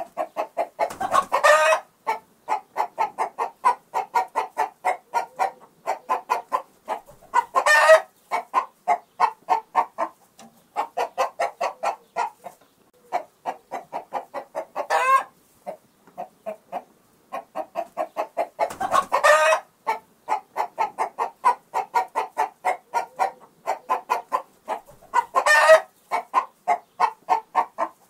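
Chickens clucking in fast runs of short clucks, with a louder, longer squawk breaking in five times.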